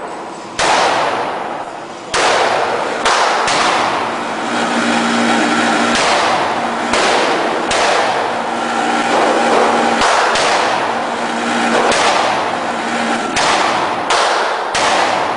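Ruger Mini-14 semi-automatic rifle firing a slow, irregular string of about a dozen shots, each a sharp crack that echoes off the concrete walls of an indoor range lane.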